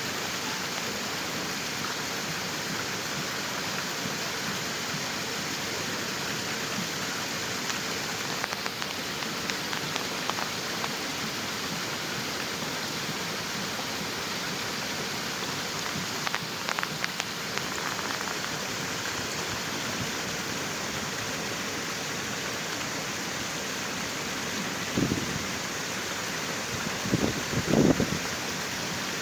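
Steady rush of flowing water, with a few short louder bursts near the middle and near the end.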